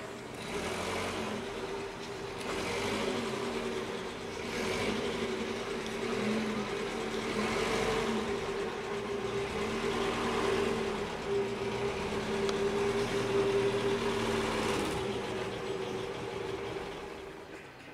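A motor vehicle engine idling nearby: a steady hum whose pitch wavers up and down, with a rush of noise that swells and fades every couple of seconds.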